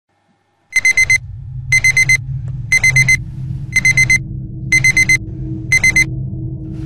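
Digital alarm clock beeping in quick groups of four, about one group a second, six groups in all, then stopping as it is reached over and silenced. A steady low hum runs underneath from the first beep on.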